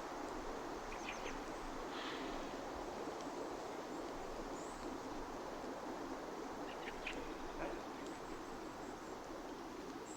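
Steady outdoor background rush with a few short, faint bird chirps: a cluster about a second in, another at two seconds, and more around seven seconds.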